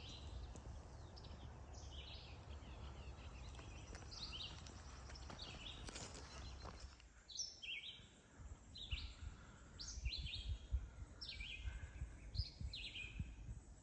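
Songbirds chirping and singing: short, high chirp phrases repeating throughout, over a low background rumble that eases about seven seconds in.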